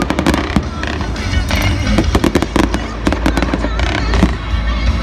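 Fireworks display: aerial shells bursting and crackling in rapid, irregular bangs, over a steady low rumble.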